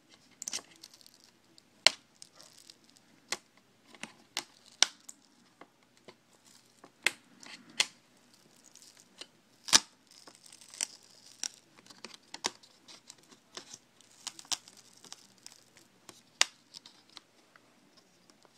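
The glued plastic screen bezel of a Dell XPS M1530 laptop being pried off by hand: irregular sharp snaps as it pops loose, with crackling and tearing as the glued plastic peels away. The loudest snap comes about halfway through.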